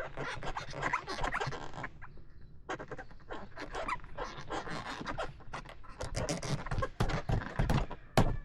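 A dog panting, among scattered short clicks and rustles.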